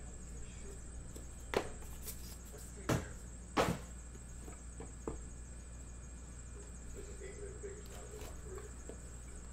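A few short knocks and scuffs, the loudest about one and a half, three and three and a half seconds in, from cards and packs being handled on a table, over a steady low hum. A faint voice murmurs near the end.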